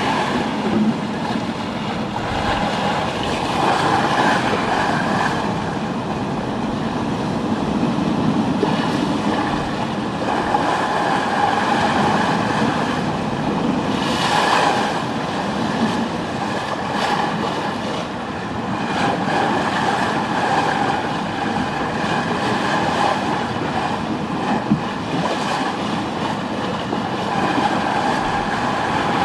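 Continuous rushing and rumbling aboard a two-masted schooner under way, the noise of sea water along the hull, swelling and easing every few seconds, with a faint wavering hum under it.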